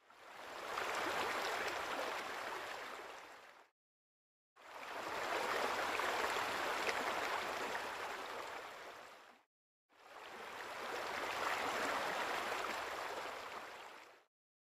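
Steady rushing, water-like noise in three stretches of about four to five seconds each. Each stretch fades in and out, with short dead-silent gaps between them.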